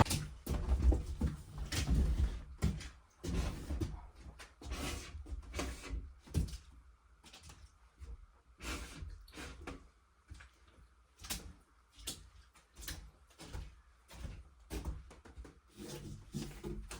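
Irregular wooden knocks, bumps and thumps, a dozen or more, loudest in the first couple of seconds and again about six seconds in, then lighter.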